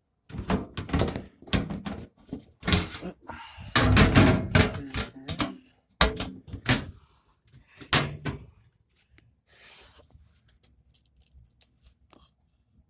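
A run of knocks, bangs and clatters, several a second for about eight seconds, then only faint ticks and a light hiss.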